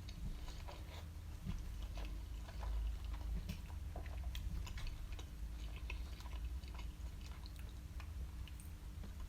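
Close-up chewing of a mouthful of cheesy chips and doner kebab meat, with many small wet mouth clicks.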